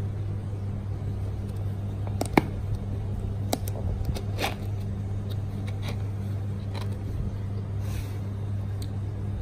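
Steady low hum with a few light knocks and taps from a cardboard box being handled and turned, the sharpest about two and a half seconds in.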